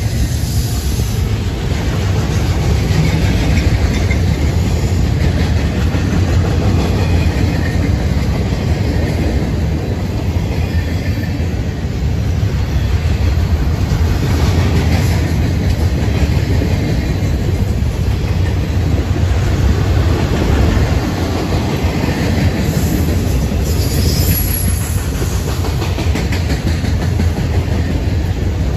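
Freight train rolling past at close range: a steady, loud rumble of steel wheels on the rails as a string of flatcars loaded with track-maintenance machines goes by.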